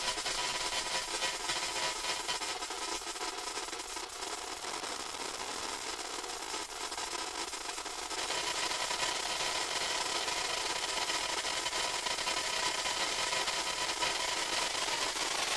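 Granular grain cloud from the grainstretch~ Max/MSP external: a drum loop held almost in place at zero playback speed and smeared into a dense, buzzing, hissy texture with steady ringing tones. About eight seconds in, with the grain size cut to 16 ms, it turns brighter and a little louder.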